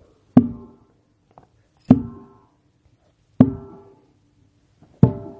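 Steel-framed mesh ramp banging against a stuck tree trunk, four sharp blows about one and a half seconds apart, each clang ringing briefly. The trunk is being knocked loose.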